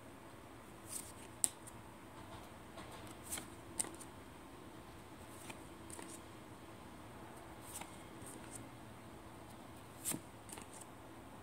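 Paper tarot cards being slid one at a time off the front of a hand-held deck and onto the back, each move a brief papery swish or flick, coming at irregular intervals of a second or more.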